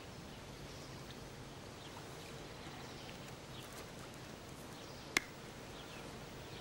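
Quiet outdoor ambience: a steady low hum with faint scattered bird chirps, and one sharp click about five seconds in.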